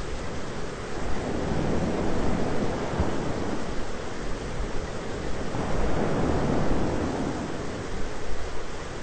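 Thunderstorm ambience: a dense, steady hiss of rain and wind, with deeper rumbling swells building about a second in and again past the middle.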